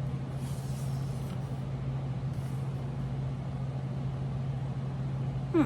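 Steady low background hum with an even hiss, and faint rustles about a second in; a brief falling vocal sound just before the end.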